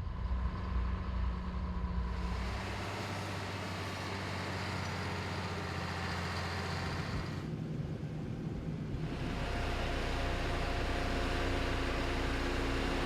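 Diesel engines of heavy road-construction machinery running steadily. The engine note changes abruptly twice, about two seconds in and again about eight to nine seconds in.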